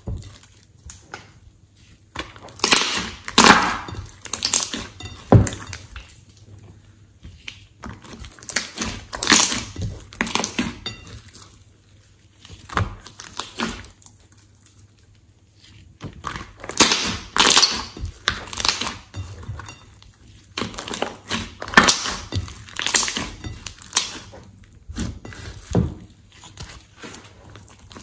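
Hands squishing, folding and pressing a large mass of glossy slime in a glass bowl, in irregular bursts of sticky squishing with a quieter stretch about halfway through.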